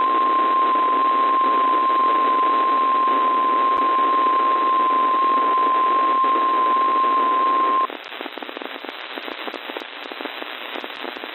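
NOAA Weather Radio 1050 Hz warning alarm tone, one steady tone over receiver hiss, broadcast as the weekly test of the tone alert that triggers alarm receivers. It cuts off about eight seconds in, leaving only crackling radio static.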